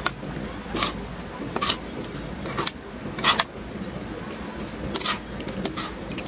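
A metal spoon scraping against a wok while stirring wet, syrupy shredded vegetables and pineapple, with short irregular scrapes about once a second.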